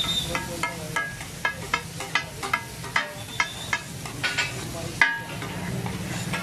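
Metal spatula clanking and scraping on a large flat iron tawa as meat is chopped and stirred. The ringing clanks come about three times a second, the loudest about five seconds in, and they thin out near the end.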